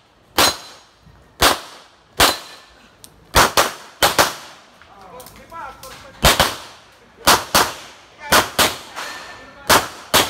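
Gunshots in an irregular string of about fifteen shots, many fired as quick pairs, each with a short echo: a competitor shooting a course of fire.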